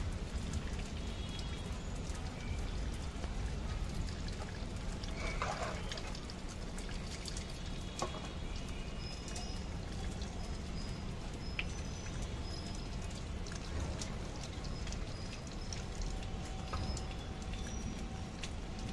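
Rainwater dripping and pattering over a steady low rumble, with scattered small clicks and a few brief high chirps.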